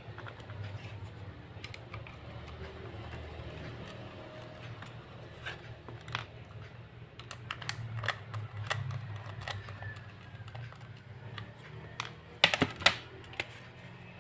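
Scattered light clicks and taps of small plastic and metal laptop parts being handled as an SSD is taken out of a laptop, with a louder cluster of clicks about twelve seconds in, over a steady low hum.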